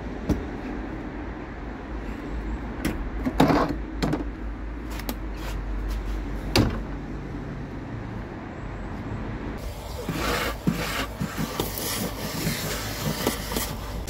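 Knocks and clunks from a van's folded rear seat being worked loose and lifted out, over a low steady rumble; the loudest knocks come about three and a half and six and a half seconds in. From about ten seconds in there is a rapid run of short scraping, rustling noises.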